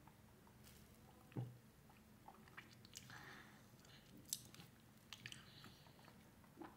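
Faint mouth sounds of sipping cola through a straw and swallowing, with a few soft clicks and a dull knock about a second and a half in.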